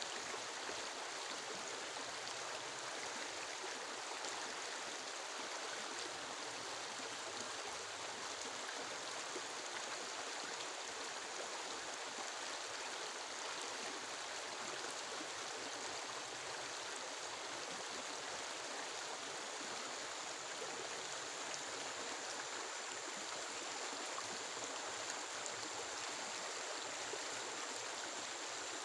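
Steady heavy rain falling in a forest, an even rushing hiss with no breaks or thunder claps.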